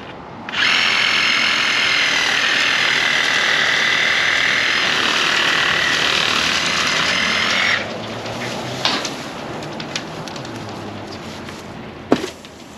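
An electric power tool's motor runs at a steady high-pitched whine for about seven seconds, then stops suddenly. A few light clicks follow, then a sharp knock near the end.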